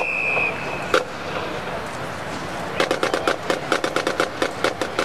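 A whistle blows a steady high tone that cuts off about half a second in, then a single sharp crack about a second in. From about three seconds in, a marching band's drumline plays a quick, even run of strikes, about eight a second.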